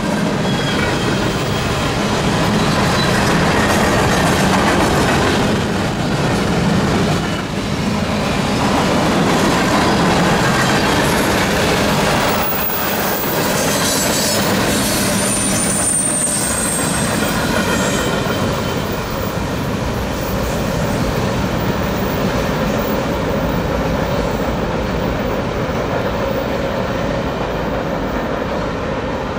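Freight train cars rolling past at close range: a steady rumble and rattle of steel wheels on the rails, with a thin, high wheel squeal about halfway through.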